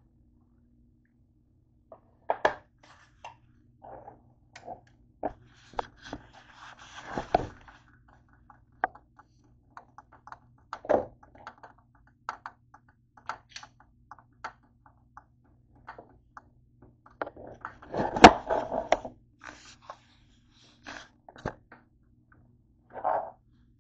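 Handling noises on a kitchen counter: scattered clicks, knocks and scrapes as a plastic bottle, a plastic mayonnaise jar and its screw lid are moved about. The loudest is a cluster of knocks and scraping about 18 seconds in.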